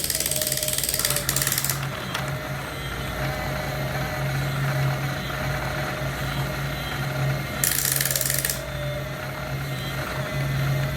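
Small electric motors and gearboxes of radio-controlled construction models running, with a steady low hum. A brighter high-pitched whir cuts in for about a second around eight seconds in.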